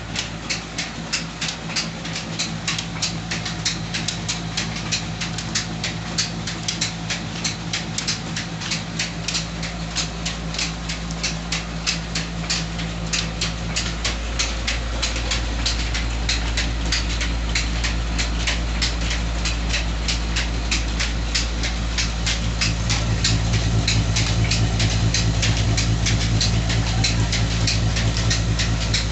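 Electric stone flour mill (atta chakki) with a 25 HP motor and 30-inch grinding stones running: a steady low hum with a fast, even clatter over it. The hum grows heavier about halfway through and louder again near the end.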